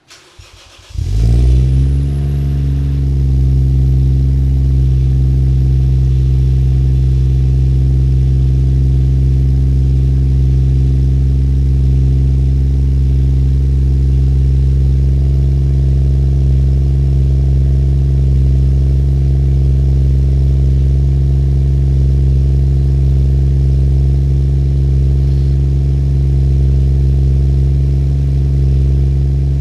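Toyota 1JZ-GTE inline-six, converted to a single turbo and breathing through a 5ZIGEN exhaust, starting up: it catches about a second in, flares up, then settles within a couple of seconds into a steady idle.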